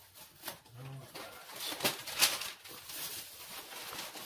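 A cardboard shipping box being opened and handled, with flaps and packing scraping and crackling in a string of sharp clicks; the loudest crack comes about two seconds in. A brief low hum from the man just before the first second.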